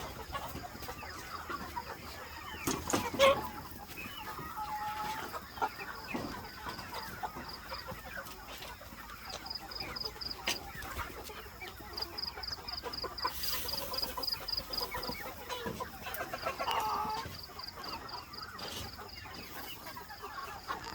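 Chickens clucking and calling, the loudest call about three seconds in, with a fast, high pulsing chirp in the background during the second half.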